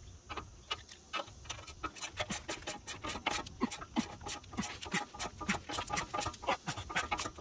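Ratcheting wrench clicking in quick, uneven runs as it turns a stubborn 21 mm upper control arm ball joint nut.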